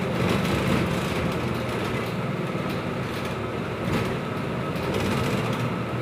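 Steady engine hum and road noise of a bus under way, heard from inside the cabin at the front.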